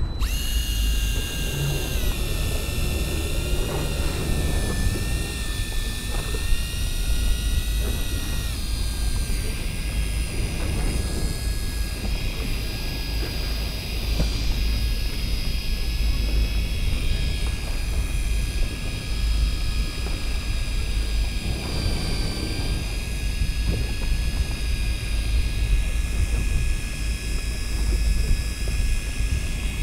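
Daiwa Seaborg 200J electric fishing reel's motor whining steadily as it winds in line. Its pitch steps down a few times, over a constant low rumble.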